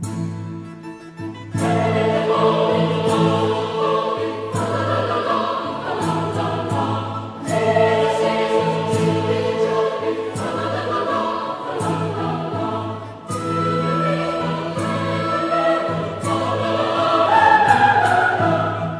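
Choral music: a choir singing over held low chords, the full choir coming in about a second and a half in.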